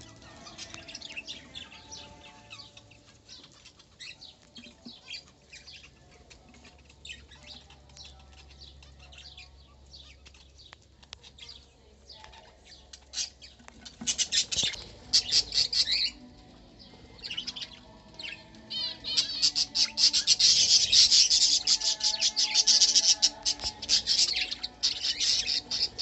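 A mixed aviary flock of budgerigars and other small parrots chirping and chattering, many short high calls overlapping. Sparse and faint at first, the chatter turns dense and loud about halfway through, and again for the last several seconds.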